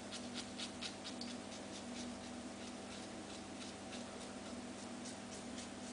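Merkur slant double-edge safety razor with a Feather blade scraping through lathered stubble in short, irregular scratchy strokes, faint, over a steady low hum.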